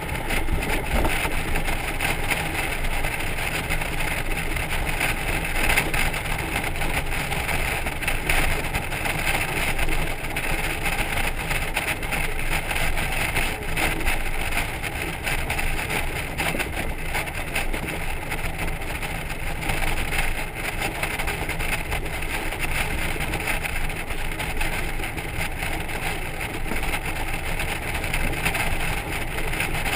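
Honda Gold Wing motorcycle cruising, its engine running steadily under a constant rush of wind and tyre noise, heard from the trailer it is towing.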